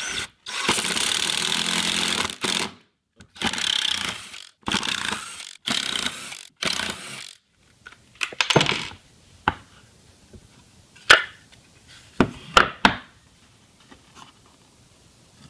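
Cordless power driver sinking a wood screw into hardwood: one long run of about two seconds, then four shorter pulses as the screw is driven home. After that come several sharp clicks and knocks as loose screws and the board are handled.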